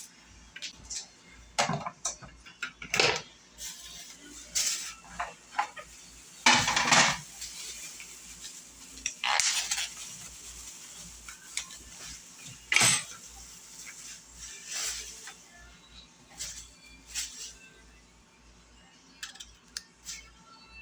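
Kitchen utensils and dishes clinking and knocking at irregular intervals during food preparation, with a louder clatter about a third of the way in.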